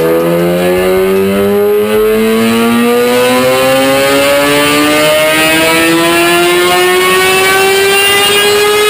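Kawasaki ZX-10R inline-four with a slip-on exhaust and its catalytic converter removed, held at full throttle on a dyno and pulling up through the revs, its pitch rising slowly and evenly.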